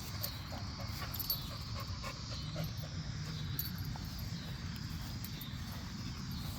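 A dog whining in faint high-pitched whimpers over a steady low rumble.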